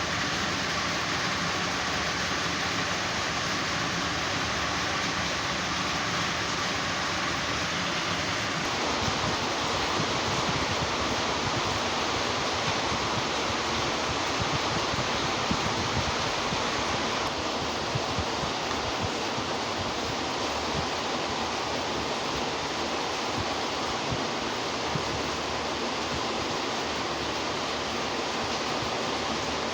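Steady rushing noise, even and hiss-like, that changes character abruptly about nine seconds in and again about seventeen seconds in.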